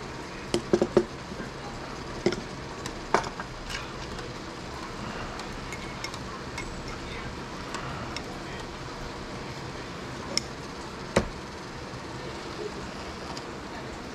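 Light metal clicks and clinks as fishing hooks are set into a metal jig-head mold and the mold is handled, a cluster of them in the first few seconds, with one sharp knock about eleven seconds in. A steady hum runs underneath.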